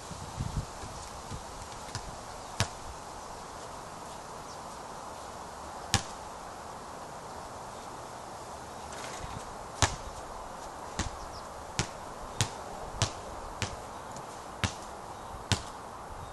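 Basketball bouncing on a backyard court: sharp single slaps, then from about two-thirds of the way in a run of bounces roughly every half second to second, over a steady background hiss.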